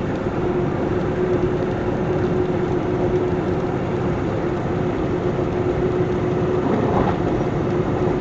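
Truck driving at highway speed, heard from inside the cab: steady engine and road noise with a constant hum.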